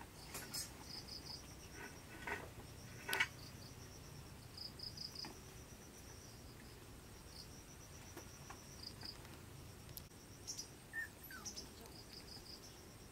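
Insects chirping in short, rapid pulsed trills that repeat every second or so, with a few soft clicks and knocks, the loudest about three seconds in.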